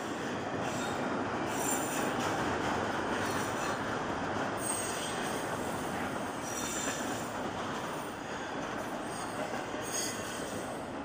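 Freight train's double-stack container cars rolling past: a steady rush of wheel and rail noise. Brief high-pitched wheel squeals break in every couple of seconds.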